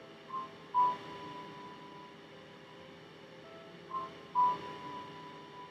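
Soft background music of single electronic notes: a short note and then a louder one that rings on for about a second, the pair coming twice, a few seconds apart.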